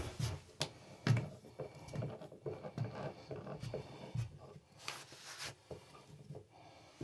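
Wheel-handled water shutoff valve on a CPVC supply line being turned by hand, with scattered short clicks and knocks from the handle and pipe as the water to the house is shut off.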